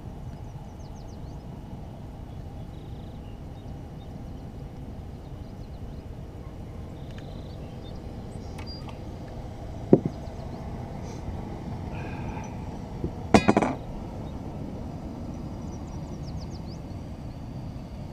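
Knocks and clinks of a fish and tackle being handled on a bass boat's deck: one sharp knock about ten seconds in and a quick rattle of several a few seconds later, over a steady low background of wind and water.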